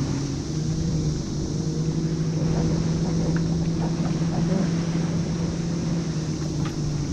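A boat motor running at a steady speed, giving an even low hum that holds one pitch, with a few light clicks over it.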